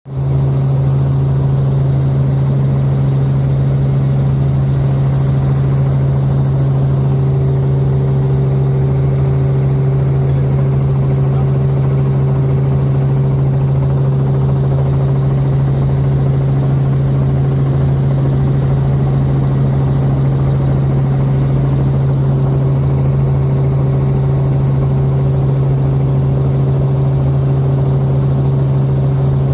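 Helicopter engine and rotor running steadily, heard inside the cabin: a loud, even drone with a strong low tone and a thin high whine above it.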